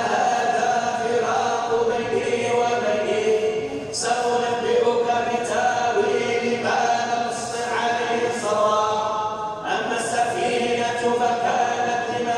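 Chanted Quran recitation in long melodic phrases of held notes, breaking between phrases about four seconds in and near ten seconds in.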